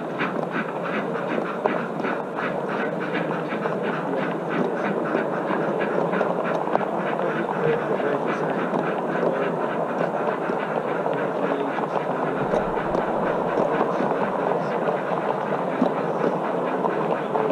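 Gauge 1 model train coaches rolling past on garden track: a steady rolling rumble with rapid, even clicking from the wheels over the rail joints, the clicks most distinct in the first several seconds.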